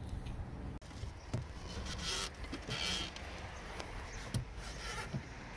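Rustling and scraping handling noises with a few light clicks, over wind rumble on the microphone, as someone moves about in a small boat.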